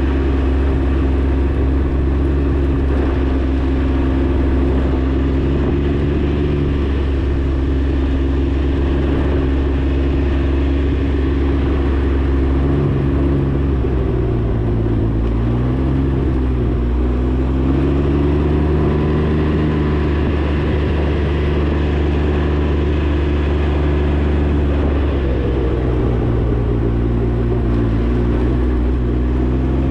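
Can-Am Ryker 900's three-cylinder engine running steadily under way. Its note dips and climbs back twice, about halfway through and again near the end, as the throttle eases off and opens up.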